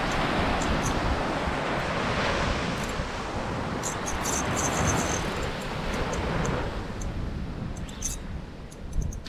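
Surf washing on the beach and wind buffeting the microphone, a steady rushing noise, with clusters of light ticks about halfway through and again near the end, and a brief bump just before the end.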